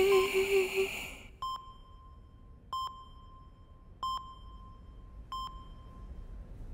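Hospital patient monitor beeping: four short single-pitch beeps about 1.3 s apart, each leaving a short ringing tail. The tail of a slow sung song fades out just before the first beep.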